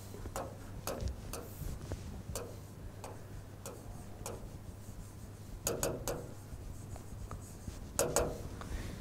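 Chalk writing on a chalkboard: a string of short sharp ticks and taps with soft scraping between them, over a faint steady low hum.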